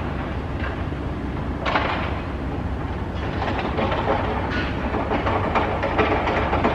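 A train running on nearby tracks: a steady, loud mix of low drone and rattling rail noise.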